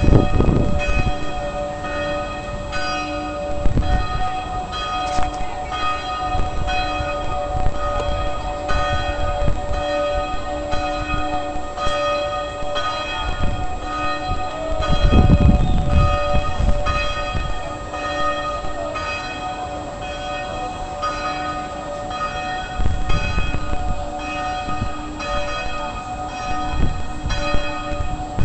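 Church bells pealing, struck over and over about once a second with the ringing tones overlapping into a continuous peal. A few low rumbles break in, the loudest about halfway.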